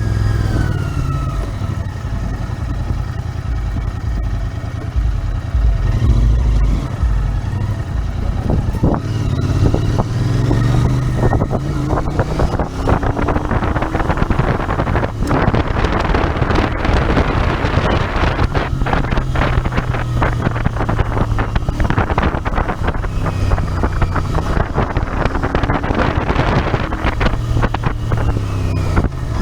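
Royal Enfield Interceptor 650's 648 cc parallel-twin engine running while riding, its pitch rising and falling with throttle and gear changes. Heavy wind buffeting on the microphone through the middle.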